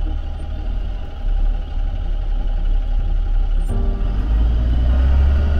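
Steady low rumble of a 6x6 FMTV diesel expedition truck driving on a gravel road, heard from inside the cab, with background music laid over it.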